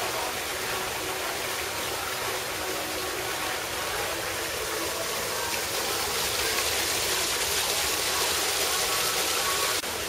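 Steady rushing noise like running water, a little louder and brighter from about six seconds in.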